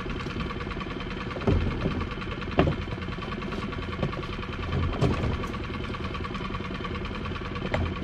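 Small fishing boat's engine idling steadily, with a few short knocks over it.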